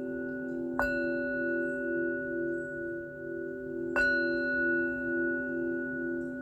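Singing bowl struck twice, about three seconds apart, each strike ringing on over a steady low hum that pulses about twice a second.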